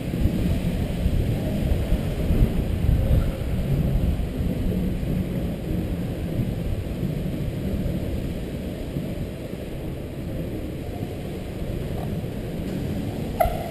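Inline skate wheels rolling on a concrete parking-garage floor: a steady low rumble, stronger in the first half and easing off later, with one sharp knock near the end.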